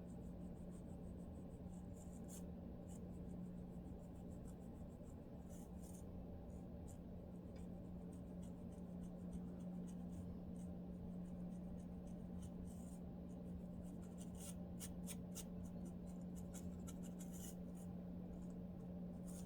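Faint scratching at a dry, dandruff-flaked scalp: short scratchy strokes, scattered at first and then coming thick and fast a little past the middle, over a steady low hum.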